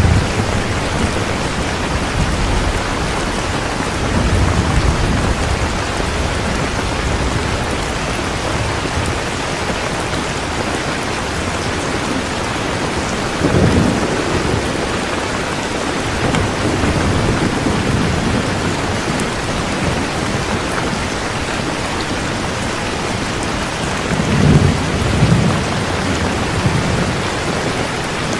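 Heavy rain pouring steadily, with low rolls of thunder: one a few seconds in, one near the middle, and a double roll near the end.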